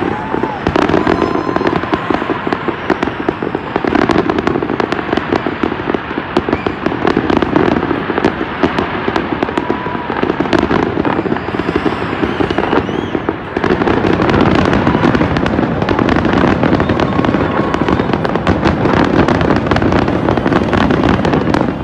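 Aerial fireworks display: a dense, continuous run of bangs and crackling with no real break, dipping briefly a little past halfway.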